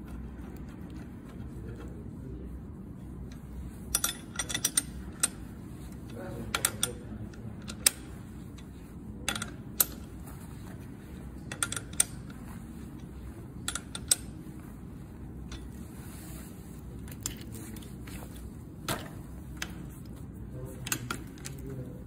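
Steel hex key clicking against a bolt head on an electric scooter's steering stem as it is turned, in short groups of sharp metallic clicks every second or two, over a steady low hum.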